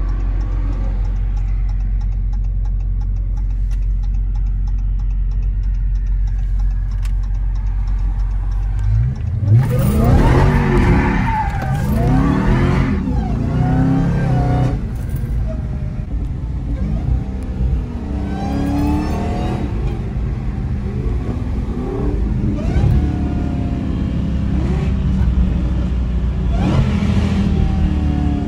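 Dodge Hellcat's supercharged 6.2-litre Hemi V8 holding a steady low rumble, then about nine seconds in opening up at full throttle. Its pitch climbs and drops repeatedly through gear changes and further stabs of throttle.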